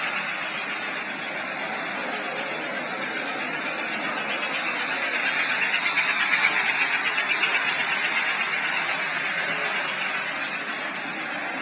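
An American Flyer S-gauge 322 Hudson model steam locomotive running on the track, its motor and wheels making a steady rolling noise that grows loudest about six seconds in as it passes close.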